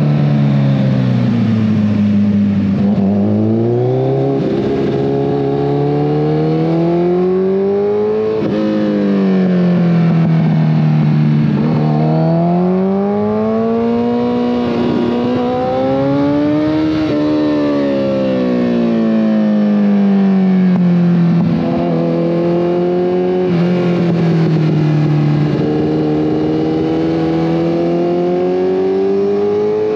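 2014 Kawasaki ZX-14R inline-four engine running through a full Brocks Alien Head 2 exhaust under riding load. Its pitch rises and falls over and over as the throttle is opened and closed.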